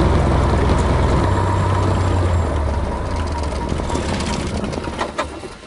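Cabin noise of a 1958 Cessna 172's air-cooled engine and propeller running at low power, a steady low hum, dying away near the end as the engine is shut down, with a couple of clicks just before it drops off.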